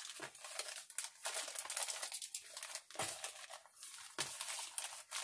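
Black plastic poly mailer crinkling and crackling as it is handled and opened, in irregular sharp bursts.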